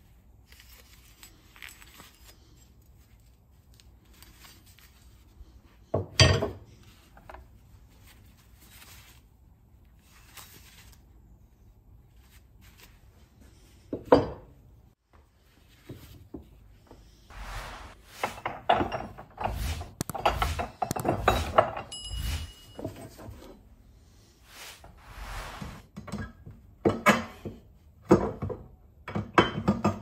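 A cast metal axe and a metal ingot being handled and set down on a wooden bench: two sharp knocks several seconds apart, then a run of clunks and clinks, with a brief metallic ring about two-thirds of the way through.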